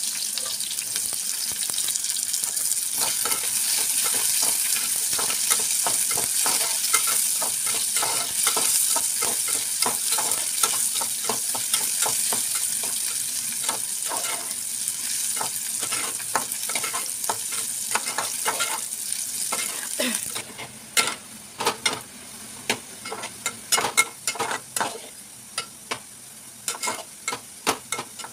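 Sliced onions sizzling in hot oil in a metal pot, stirred with a metal spoon that scrapes and clicks against the pot. About two-thirds of the way through, the sizzle drops to a quieter hiss and the spoon's clicks stand out.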